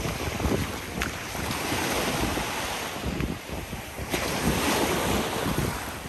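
Sea waves washing onto the shore, swelling twice (about a second and a half in, and again about four seconds in), with wind buffeting the microphone as a gusty low rumble.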